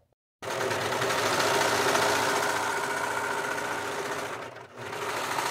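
Brother 1034DX overlock serger running at a steady, fast speed while serging the bottom hem of a shirt. It starts suddenly about half a second in and dips briefly near the end before picking up again.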